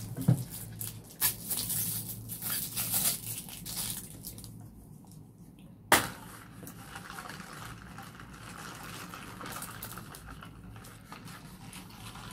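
Close-mic eating and handling noises: crackly crunching and clicks for the first few seconds, a single sharp tap about six seconds in, then faint handling of a plastic bubble tea cup and straw.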